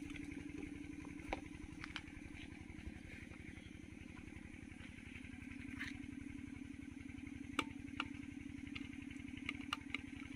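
A small engine running steadily in the background with a rapid, even low throb. A few faint sharp clicks sound over it, more of them near the end.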